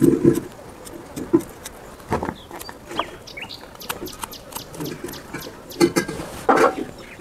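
Birds chirping and the occasional cluck of chickens, with light, scattered scraping clicks of a kitchen knife peeling taro roots.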